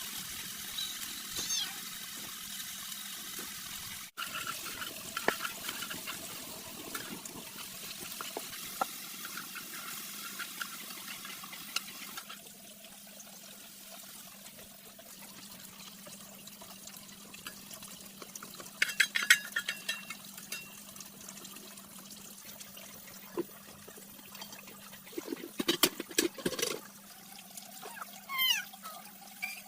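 Water running and splashing, a steady hiss that drops away about twelve seconds in, with a few sharp knocks and clatters in the second half.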